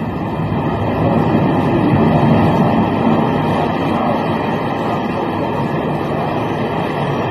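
A World Trade Center tower collapsing: a loud, continuous low rumble that swells to its peak about two seconds in and then holds steady.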